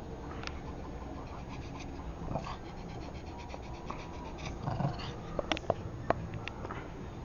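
Pet dogs moving about and making small sounds, with a few sharp clicks a little over five seconds in.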